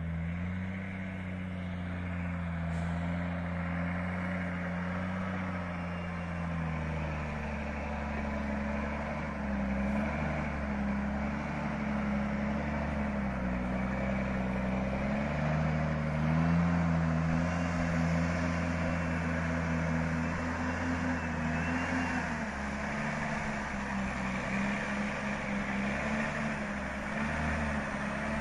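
Loaded cab-over log truck's diesel engine working steadily on a dirt road, its engine note shifting up and down several times and growing louder as the truck approaches.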